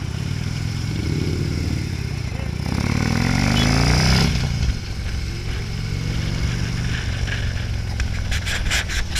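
Motorcycle engine accelerating away from a stop, rising in pitch for about three seconds and dropping with a gear change before pulling up again, with wind rushing over the microphone. Near the end there are knocks and scraping close to the microphone.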